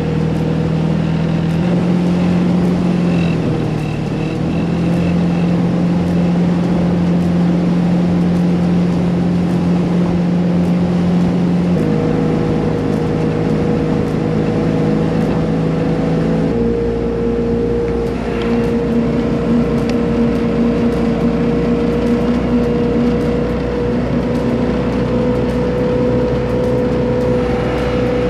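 Built 350 cubic-inch Chevy V8 inboard of a 1991 Malibu ski boat running steadily at speed, with water rushing along the hull. Its note steps to a different pitch twice, about twelve and sixteen seconds in.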